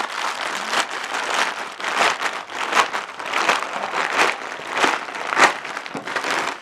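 Plastic courier mailer bag crinkling and tearing as hands rip it open: a continuous rustle broken by sharp crackles, the loudest about five and a half seconds in.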